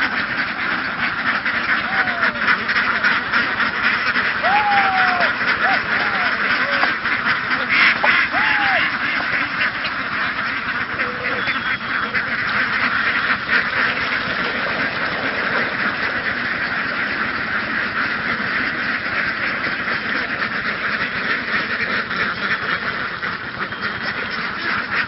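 A large flock of laying ducks quacking all at once, a dense, continuous chorus of overlapping quacks. A few short, higher arched calls stand out over it in the first third.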